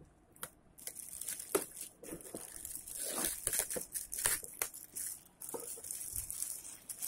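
Clear plastic wrapping being slit with a kitchen knife and pulled off a glass pan lid: an irregular run of crinkling, tearing rustles and crackles.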